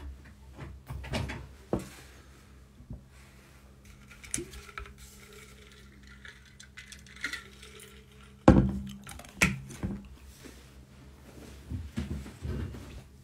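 Handling noise from drinking out of a lidded tumbler and moving the phone: scattered knocks and clicks, the loudest a thump about eight and a half seconds in, over a low steady hum.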